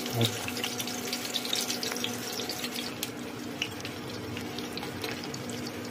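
Stuffed bitter gourds (karela) shallow-frying in hot oil in a steel kadai over low heat: a steady sizzle with scattered small crackles and pops, over a steady low hum.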